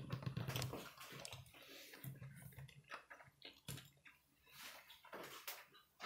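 Faint scattered clicks and light knocks in a quiet small room, with a low hum now and then.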